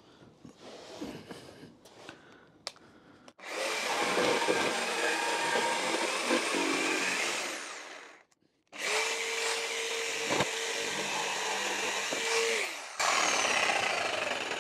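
Electric jigsaw cutting through a piece of old, very hard recovered beam wood, in runs of a few seconds that start about three seconds in and stop abruptly, with a steady motor whine through the middle run. Small handling noises before the first cut.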